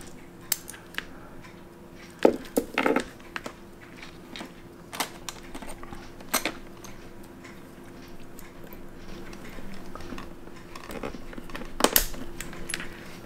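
Light, irregular metallic clicks and clinks of a stainless steel watch case and bracelet being handled, with the strongest clicks about two, three, five, six and twelve seconds in, over a faint steady hum.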